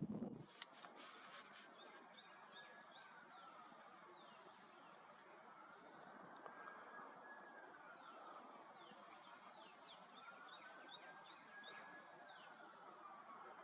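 Faint songbird chirps: clusters of short, high, down-sliding notes against quiet outdoor ambience. A fainter, lower tone slowly rises and falls three times underneath.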